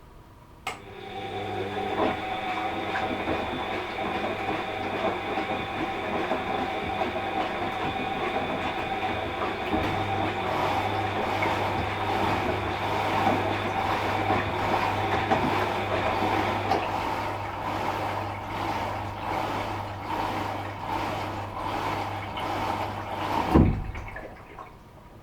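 Washing machine motor running during the wash, turning the drum: a click under a second in, then a steady hum with the drum and laundry churning. Near the end it stops with a loud knock.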